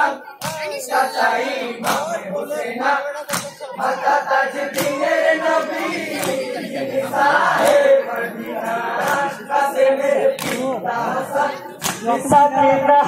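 Group of men singing a Bengali Karbala lament song in chorus, with a sharp percussive beat about every one and a half seconds.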